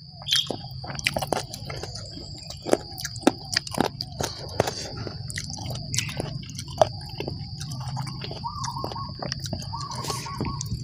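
Close-up mouth sounds of eating by hand: wet chewing, lip smacks and sharp clicks scattered irregularly. Underneath runs a steady high insect drone, and from about eight seconds in short chirping trills repeat every second or two.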